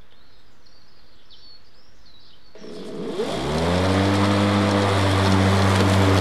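Stiga Twinclip 950 cordless battery lawnmower's electric motor and blade spinning up about three seconds in: a hum that rises in pitch for about a second, then runs steadily at full speed. Before that, only quiet outdoor background.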